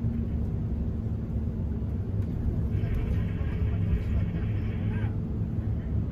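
Airport apron bus driving, a steady low engine and road rumble heard from inside the cabin. A higher whining tone joins for about two seconds in the middle.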